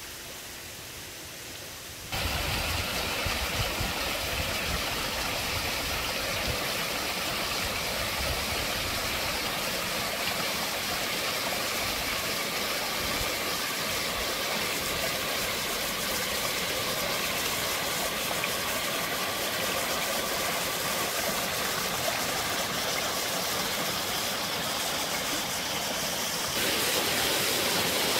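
Small stream of water splashing and trickling down over rocks in a steady rush, with a low rumble under it for the first part. It starts suddenly about two seconds in after a faint hiss, and steps up louder near the end.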